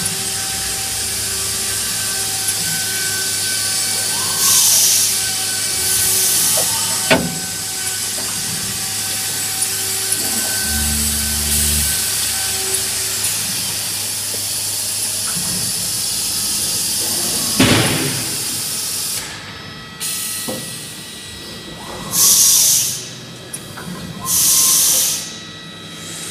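CNC wood router running and cutting wood: a steady high hiss with faint steady tones under it, a sharp click about seven seconds in and another about eighteen seconds in. Short, louder bursts of hiss come a few times, two of them near the end.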